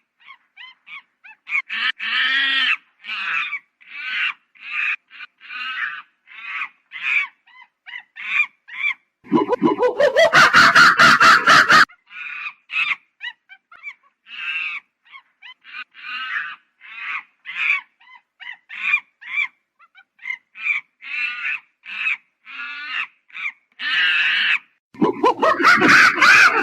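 Monkey calls: a long run of short, high chirps and squeaks, a few a second, broken by two louder, longer calls, one about nine seconds in and one near the end.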